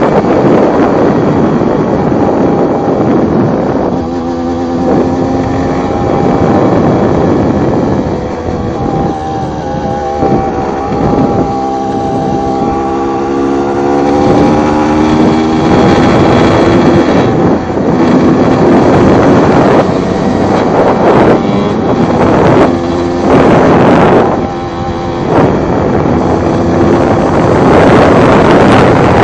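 Single-cylinder two-stroke engine of a Yamaha TZR / MBK X-Power motorcycle bored to 90 cc, running under way. Its revs climb and drop repeatedly through gear changes, dropping low in the middle and pulling back up. Heavy wind buffeting on the microphone throughout.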